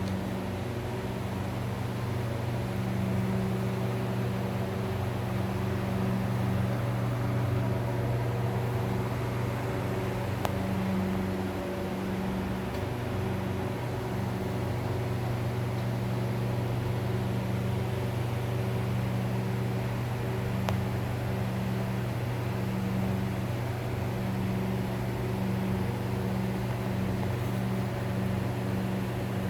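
A steady, low mechanical drone with a constant hum, like an engine or large fan running without change.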